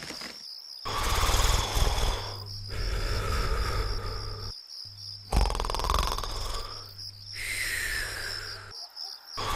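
Cartoon snoring in slow repeated cycles: a low rattling snore with a whistling tone, one whistle falling in pitch, broken by short pauses, over a steady high chirping.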